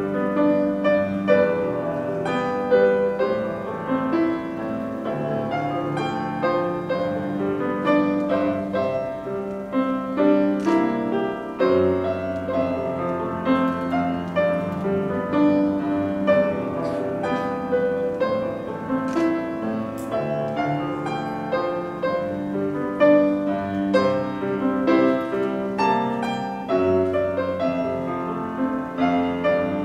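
Solo grand piano played live: an arrangement of a pop song, with held low notes under a melody line.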